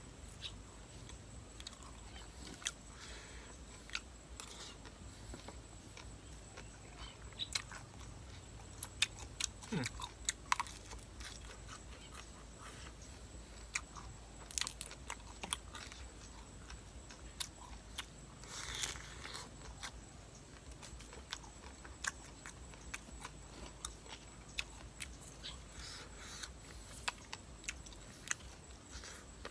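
A person chewing and crunching seafood papaya salad and raw shrimp close to the microphone, with wet mouth clicks and irregular crunches.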